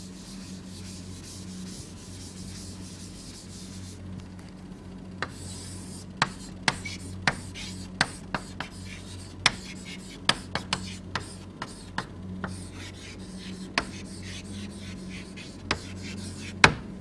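Handwriting during a lecture: faint scratching strokes, then a string of short, sharp taps from about five seconds in, over a steady low electrical hum.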